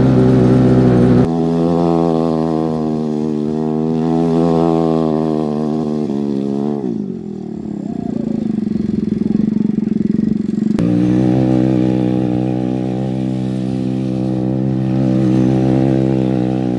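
Homemade go-kart's small engine held at high revs. About seven seconds in the revs fall away to a low, rough idle, and just before eleven seconds it comes back at high revs.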